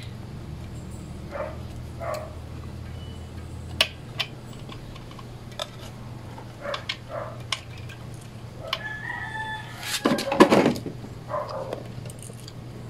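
A loud animal call lasting about two seconds, starting near nine seconds in, among scattered light clicks and knocks.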